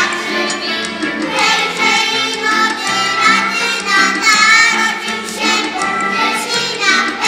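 Children's choir singing with musical accompaniment.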